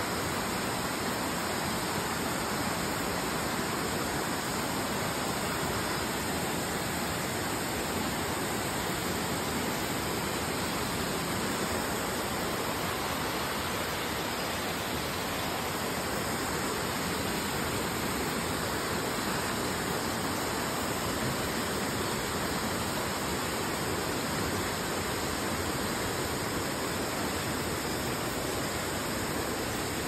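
Waterfall and river water rushing in a steady, unbroken hiss.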